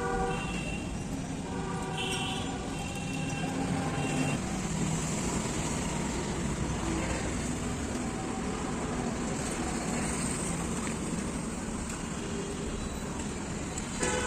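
Steady background traffic noise from passing road vehicles, with a few faint pitched sounds in the first four seconds.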